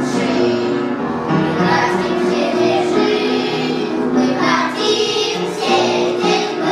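A children's song: children's voices singing over a musical accompaniment.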